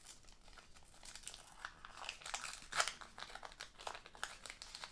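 Small folded paper packet being unfolded and peeled open by hand: soft crinkling and crackling, loudest about three seconds in.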